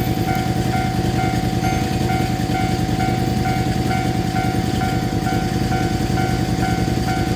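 Japanese level-crossing alarm ringing, its electronic bell tone repeating evenly about twice a second, over a steady low rumble.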